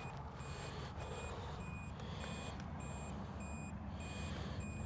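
Jump starter box beeping its warning alarm: short high beeps repeating evenly, a little under two a second, over a low steady hum. It is flagging a problem that its display gives as something about the voltage.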